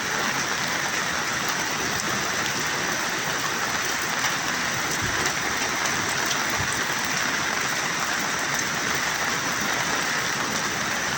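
Steady, even hiss of water in a flash flood, with no breaks or distinct strikes.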